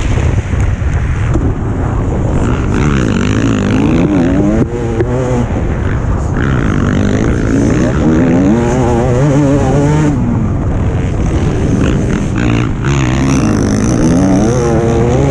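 Motocross bike engine heard onboard at racing speed, its pitch repeatedly climbing and dropping as the rider accelerates, shifts and backs off, over a heavy rush of wind on the microphone.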